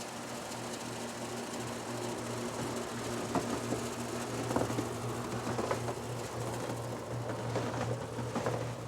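Home heating system running: a steady low hum with a rush of air, and a few faint clicks scattered through.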